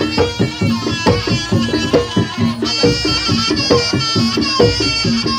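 Javanese jaranan music: fast, steady hand-drum strokes with a sustained reedy wind-instrument melody held over them.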